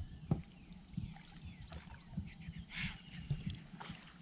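Canoe being paddled: water sloshing and lapping against the hull, with irregular low knocks and bumps. There is a brief splash a little under three seconds in.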